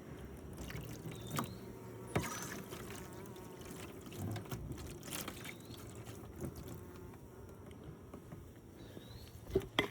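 Honeybees buzzing steadily around an open hive while sugar syrup is poured into a feeder, with a few light clicks.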